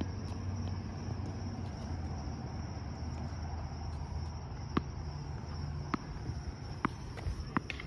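Steady, high-pitched insect chorus of crickets, over a low, steady rumble, with four or five sharp clicks in the second half.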